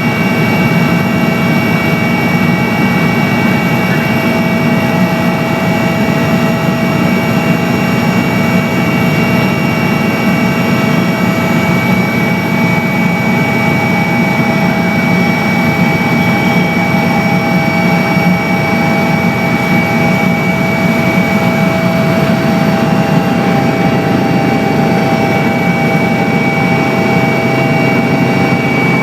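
Helicopter in flight heard from inside the cabin: a loud, steady drone of turbine engine and rotors, with several high whining tones held constant throughout.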